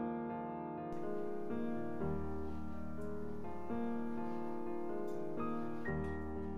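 Background music led by piano, with held notes that change about once a second.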